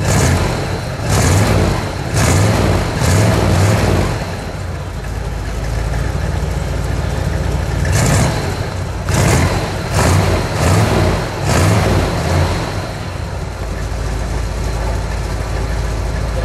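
1957 Cadillac Eldorado Biarritz's 365 cubic-inch V8 revved in a series of short throttle blips with idling between them, heard at the exhaust. It settles into a steady idle near the end.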